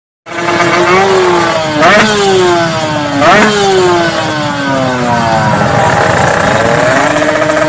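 Tuned two-stroke drag motorcycle engine being revved with two sharp throttle blips about a second and a half apart. After each blip the revs sink slowly, and they climb again near the end.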